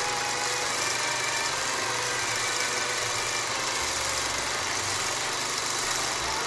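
Film projector running: a steady mechanical whirr with hiss, unchanging in level.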